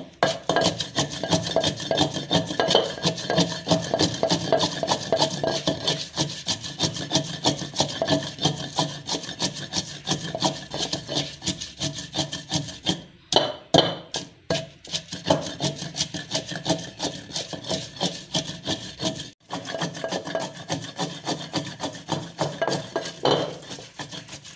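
Wooden pestle grinding fresh coriander and mint leaves with green chillies in a clay mortar: a rapid, continuous rubbing and scraping of wood against the leaves and the clay bowl, with a few short breaks about halfway through.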